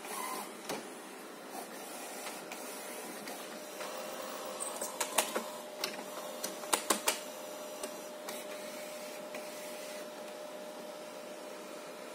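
HP Designjet 130 wide-format inkjet printer running its printhead alignment, the carriage shuttling across the paper. A steady motor hum, with a whine setting in about four seconds in, and a cluster of sharp mechanical clicks and clacks midway.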